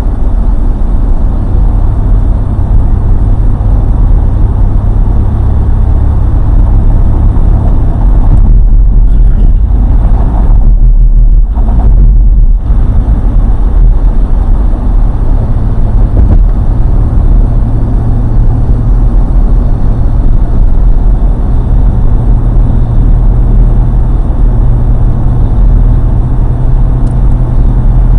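Strong sandstorm wind buffeting the microphone: a loud, steady low rumble with no let-up, thinning briefly in the upper range about ten seconds in.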